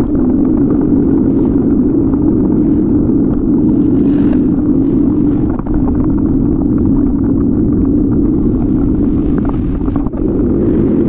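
Steady rumble of wind buffeting the microphone while riding a bicycle, mixed with road and traffic noise.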